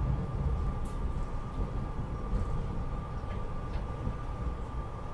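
Inside a moving SEPTA Regional Rail passenger car: the steady low rumble of the train running on the track, with a constant high tone over it and a few faint clicks.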